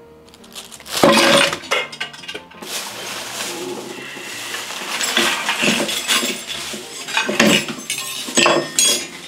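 Busy clattering and clinking of hard, metallic objects, with repeated sharp knocks and bangs that ring briefly. The loudest strikes come about a second in and twice near the end.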